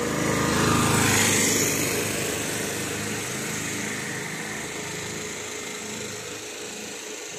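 A small-engined road vehicle passing close by. It is loudest about a second in, then fades steadily as it moves away.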